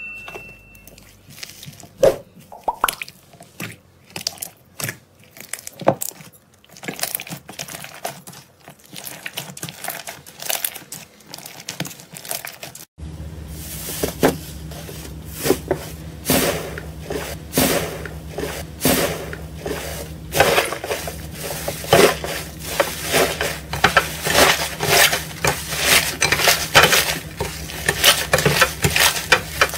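Slime being squeezed and pressed by hand, giving irregular wet clicks, pops and squishes. About 13 seconds in the sound changes abruptly to denser popping over a steady low hum.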